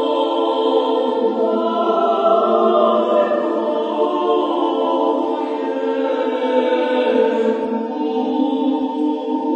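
A small group of singers singing an Armenian sacred chant a cappella, the voices holding long sustained notes in harmony.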